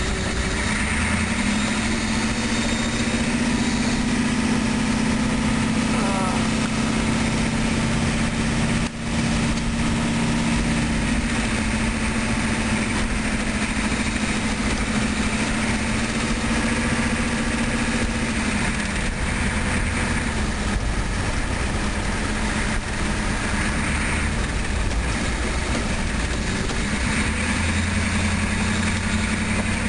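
Car engine and road noise heard from inside the cabin at low road speed: a steady engine drone whose pitch shifts up and down a few times, with a short break in the sound about nine seconds in.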